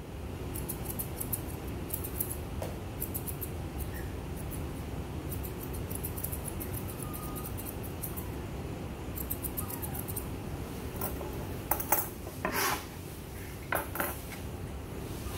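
Pet-grooming shears snipping through a Pomeranian's leg and foot fur in quick runs of small crisp clicks, followed near the end by a few louder knocks. A steady low hum runs underneath.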